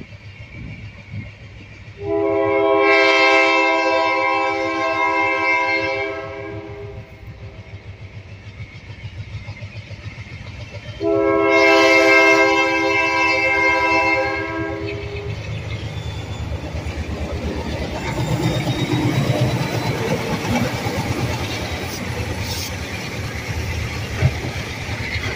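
WNYP freight train's diesel locomotive air horn sounding two long blasts, a chord of several notes, as it approaches a grade crossing. The locomotives' diesel engines then rumble past with the wheels clattering on the rails, and a sharp clank near the end.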